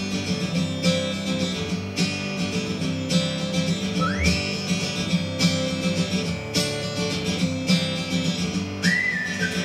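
Background music: a strummed acoustic guitar with a steady beat and a whistled melody line. One whistled note rises about four seconds in, and another whistled phrase comes near the end.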